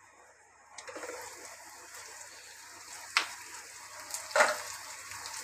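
Sliced onions and green chillies sizzling in oil in a nonstick kadai. The sizzle comes in suddenly about a second in, as the glass lid is lifted, and two sharp clinks follow, one near the middle and one near the end.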